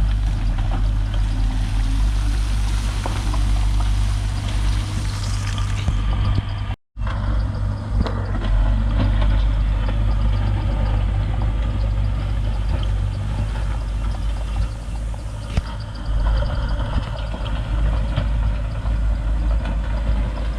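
Heavy diesel engine of earth-moving machinery running steadily with a strong deep low end. The sound cuts out for a fraction of a second about seven seconds in, then resumes.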